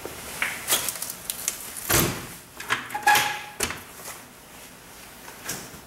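The steel battery-compartment access door on an MEP-004A military diesel generator being shut and fastened. A run of metal knocks and scrapes, the loudest about two and three seconds in, with a short squeal just after the second one.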